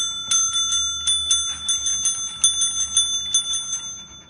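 Counter service bell (desk bell) struck over and over by a dog, about four or five rings a second in an uneven patter, the last ring fading out near the end.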